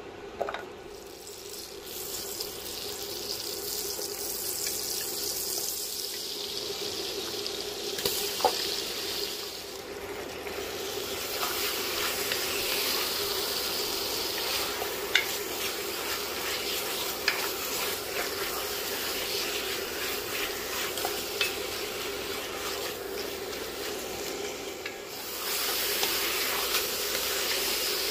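Yogurt-marinated chicken breast pieces sizzling in butter in an enamelled cast-iron pot as the marinade's water cooks off. A wooden spoon stirs and now and then knocks against the pot. The sizzle grows louder near the end.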